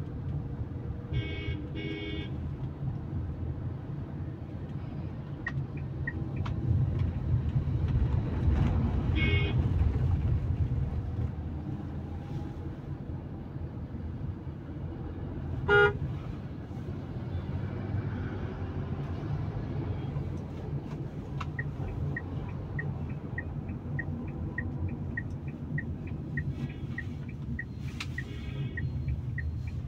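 Steady engine and tyre rumble inside a moving Tata Punch, with vehicle horns honking in traffic: two honks in the first few seconds, another about nine seconds in, and a short loud blast just past the middle. Over the last third a regular ticking about twice a second, from the car's turn indicator.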